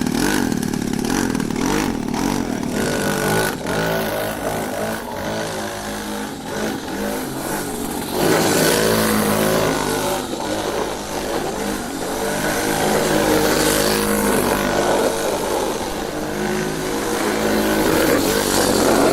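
Motorcycle engine being ridden, revving up and easing off again and again as its pitch rises and falls. It grows louder about eight seconds in.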